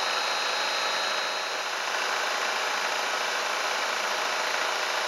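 Milling machine running a 2-inch face mill across the top of a diesel engine piston: a steady machining noise, with a thin high whine that fades out about a second and a half in.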